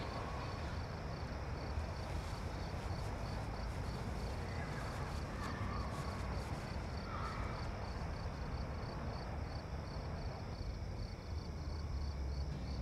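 Evening outdoor ambience: crickets chirping in a steady, even pulse several times a second, over a low steady rumble.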